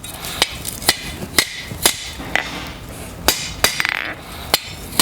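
Hand hammer striking hot steel bar on an anvil, rolling the barrel of a forged hinge, at about two blows a second with a short metallic ring after each blow.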